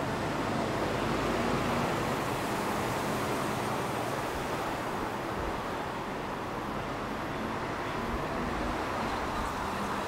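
City street ambience: a steady wash of road traffic noise with a low rumble.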